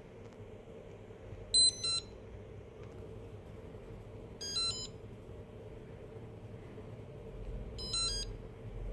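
Xiaomi electric scooter's built-in beeper sounding three short double beeps, about three seconds apart, the middle one quieter.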